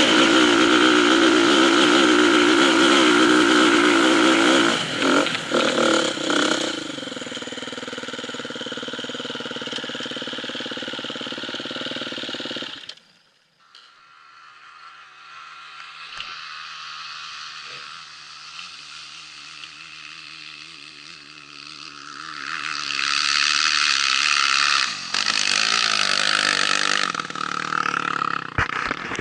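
Motorcycle engine running with a wavering pitch. It is loud at first, drops back after about six seconds, nearly cuts out about thirteen seconds in, then runs quieter before building up loud again near the end.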